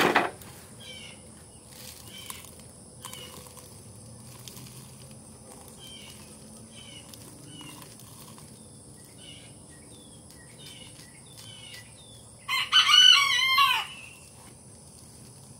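A rooster crows once, loud, near the end, over small chirps that repeat all through. A knock sounds right at the start.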